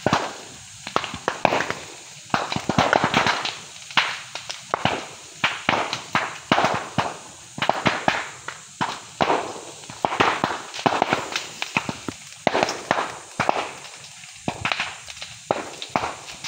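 Bamboo burning in a brush fire: sharp, irregular pops and cracks, often several in quick succession, over continuous crackling. The bamboo stems burst as the heat builds inside them.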